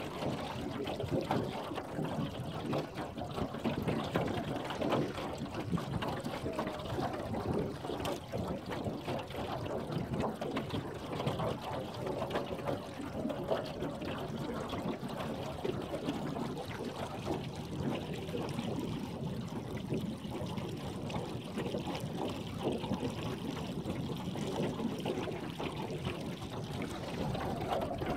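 Small waves lapping and splashing irregularly against the hull of an aluminum fishing boat sitting on choppy water.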